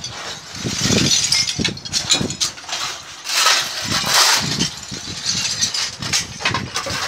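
Shovels and a rake scraping over pavement while broken tile and rubble fragments clatter and clink as they are gathered up, in a string of irregular scrapes and crashes.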